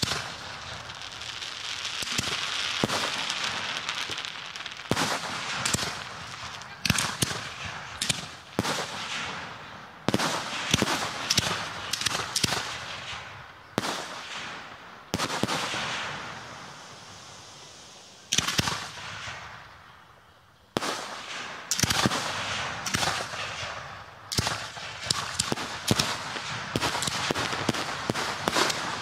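Fireworks display heard close to the launch site: mortar lifts and shell bursts bang in rapid, irregular clusters, with the hiss of rising shells between them. There is a brief lull about twenty seconds in.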